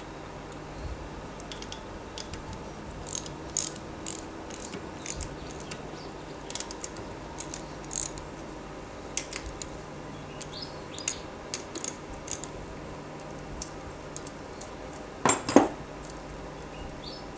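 Ratchet wrench with a 13 mm socket clicking in short, irregular runs as it undoes the bolts of a Rotax engine's gear reduction outer housing, with a louder metallic clunk near the end.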